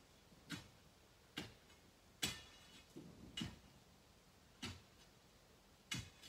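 Faint, sharp knocks of tools striking rock, about seven at uneven intervals, the loudest a little over two seconds in.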